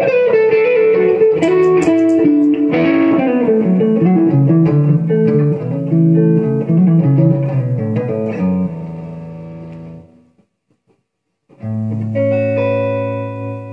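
Gibson Les Paul electric guitar played through a 1964 Fender Super Reverb amp: improvised single-note lines and chord fills, then a low chord left ringing and fading out about ten seconds in. After a short silence a fresh chord is struck near the end and left to ring.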